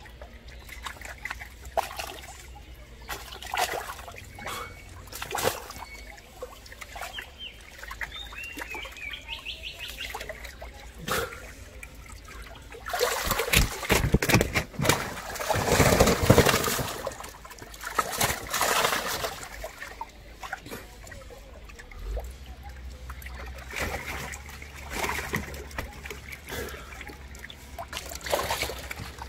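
Water splashing and trickling as people grope for fish by hand in shallow muddy water, with a louder, busier stretch of splashing about halfway through. Near the end, caught fish thrash in water held in a tarp.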